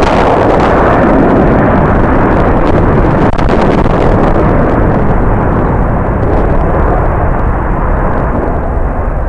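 Jet airliner engine noise, a loud, steady rumble that fades slowly over the last few seconds.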